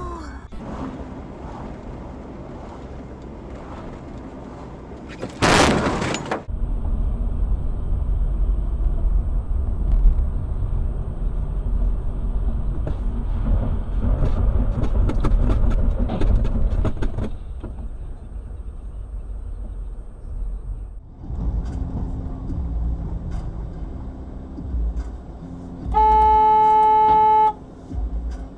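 Car driving, with steady road and engine rumble. A brief loud burst of noise comes about five seconds in, and near the end a car horn sounds one steady blast of about a second and a half.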